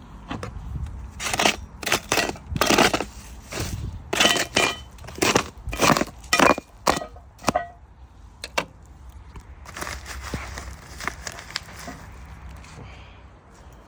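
Packaging being torn and crumpled by hand to free a ground screw: a quick run of loud rustling, crackling tears for about six seconds, then a few softer rustles.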